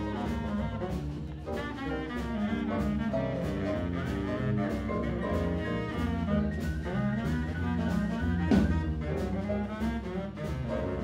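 Live swing big band playing jazz, saxophones and brass over a steady beat of about two strokes a second.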